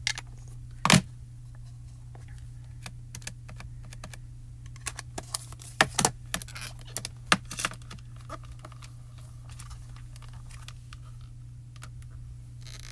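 Small plastic clicks and taps of rubber stamping: an ink pad dabbed onto a photopolymer stamp, and the hinged door of a stamping platform closed and pressed onto cardstock. There is one sharp click about a second in and a quick run of taps and knocks in the middle.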